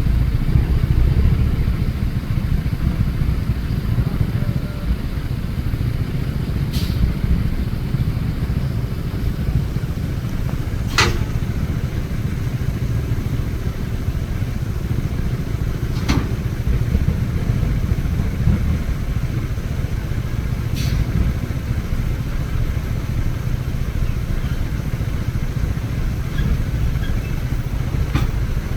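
Heavy diesel truck engine running steadily at low revs. A handful of short sharp knocks stand out over it, about five times.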